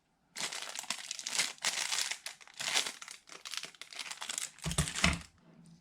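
Packaging crinkling and rustling in irregular bursts as the contents of a boxed dental cleaner kit are handled, with a dull thump near the end.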